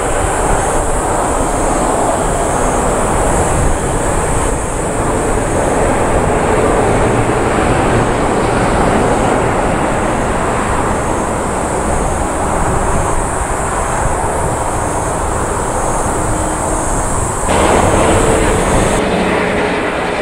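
Boeing 787-8 jet engines at takeoff thrust, a loud, steady rush of engine noise as the airliner rolls and lifts off. About three seconds before the end, the sound changes abruptly to another airliner's jet engines on approach.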